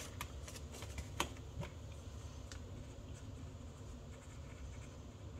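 Paper handling: a banknote rustling into a binder envelope with a few light clicks, the sharpest about a second in, then a pen writing faintly on a paper card.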